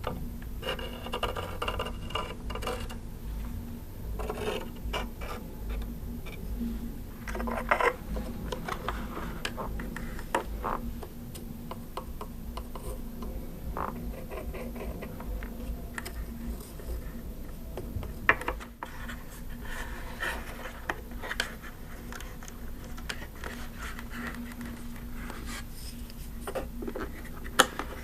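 Plastic handling sounds from a switched-off Lemax Spooky Town animatronic decoration as it is touched with a pointer and fingers and shifted about: light scratching and tapping on the plastic, with a few sharp clicks. A faint steady hum runs underneath.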